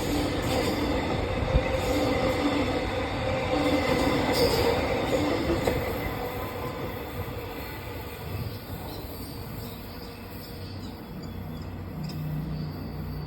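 Metro X'Trapolis electric train passing through at speed: loud wheel-on-rail and motor noise for the first several seconds, then fading steadily as the train moves away.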